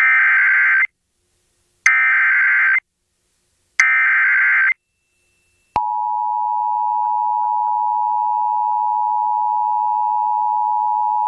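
Emergency Alert System SAME header: three identical bursts of warbling digital data tones, each just under a second long and about a second apart. These are followed about six seconds in by the steady two-tone EAS attention signal, the 853 and 960 Hz pair. Together they announce an incoming National Weather Service severe thunderstorm warning.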